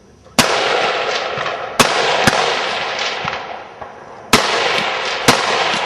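High power rifle shots on a firing line: five sharp cracks at uneven intervals, each followed by a long rolling echo that fades before the next.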